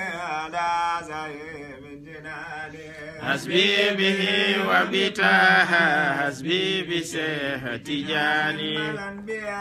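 Islamic devotional chanting in Arabic: melodic sung lines held and bent over a steady low sustained note, growing louder about three and a half seconds in.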